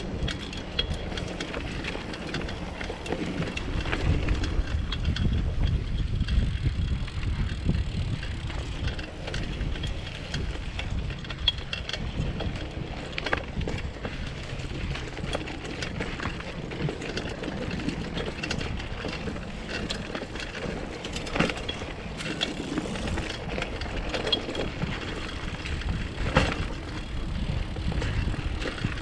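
Bicycle ridden along a dirt trail: a low rumble of wind on the microphone, with rattling from the bike and several sharp knocks as it goes over bumps.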